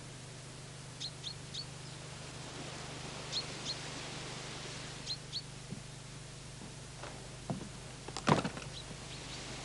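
A small bird chirping in short runs of two or three high chirps, over a steady low hum. About eight seconds in comes a cluster of knocks and thumps, the loudest sound here.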